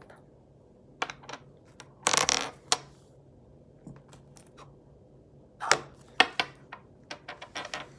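A foam squishy toy shaped like a sippy cup being handled and squeezed: scattered sharp clicks and crackles, with a short rustling burst about two seconds in and a run of clicks near the end.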